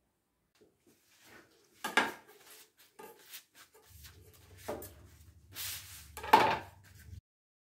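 A kitchen knife and bowls being handled and set down on a wooden cutting board: a few knocks and clatters, the loudest a little past six seconds in. A low hum sits under the second half and cuts off abruptly just before the end.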